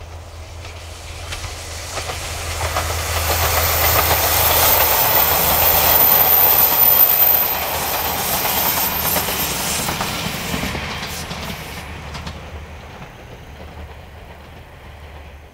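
JR Kyushu 'Yufuin no Mori' diesel train passing by: the engine and wheels on the rails grow louder to a peak about halfway through, then fade as it moves away, with a few clicks of the wheels over rail joints as it goes.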